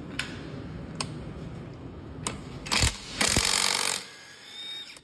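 Cordless impact wrench hammering: a brief burst near the middle, then a longer burst of rapid impacts of just under a second, its motor whining down after.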